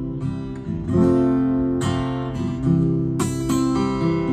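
Acoustic guitar strumming chords, four chords struck about a second apart, each left ringing.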